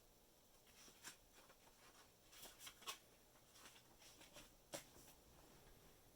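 Faint paper rustling with a few light taps and ticks, a picture book being handled and its pages turned open.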